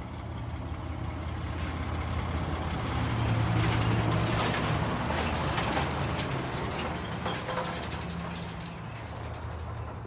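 A heavy vehicle's engine runs with a low hum that grows louder to a peak about four seconds in, then fades away, like a truck passing by.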